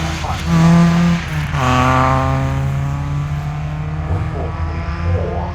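A hillclimb competition car's engine running hard at high revs. About a second and a half in, its pitch drops sharply, then it carries on at a lower pitch, gradually getting quieter.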